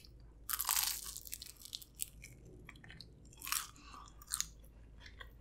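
Biting into a crisp air-fried vegetable egg roll. The biggest crunch comes about half a second in, then a few softer crunches follow as it is chewed.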